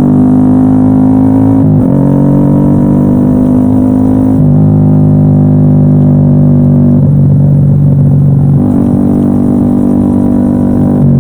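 Yamaha XSR155's single-cylinder engine droning steadily while riding. Its note shifts in pitch a few times, with a rougher, uneven stretch about two-thirds of the way through.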